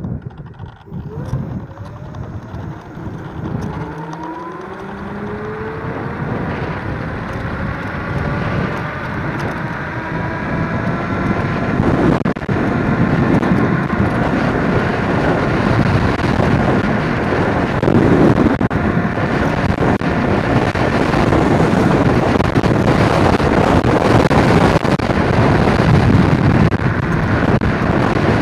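MotoTec Thor electric scooter's dual 1200 W motors whining as it accelerates hard, the whine rising steadily in pitch for about twelve seconds, under a rush of wind and road noise that keeps getting louder as speed builds toward top speed.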